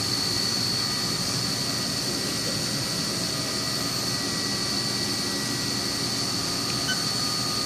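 CNC milling machine running steadily, its spindle giving a constant high whine over an even mechanical hum while it cuts the part.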